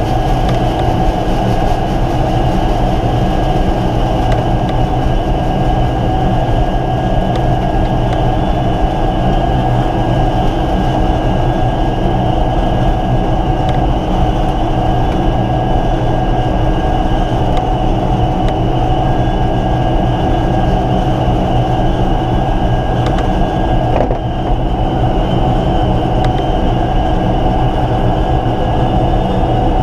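Air Tractor 802's turboprop engine running steadily on the ground, heard inside the cockpit: a dense low drone with a steady high whine over it.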